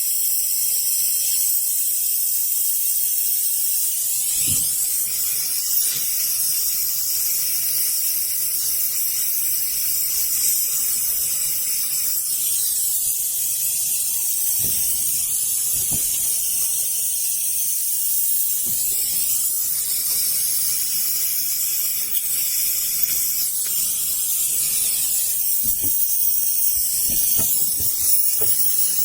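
Steady high-pitched hiss, with a few soft low knocks now and then.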